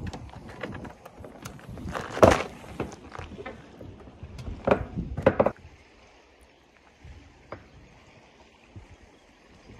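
Wind buffeting the microphone, with sharp handling knocks from the spinning rod and reel being worked in the hands. About halfway through it drops suddenly to a faint steady hiss.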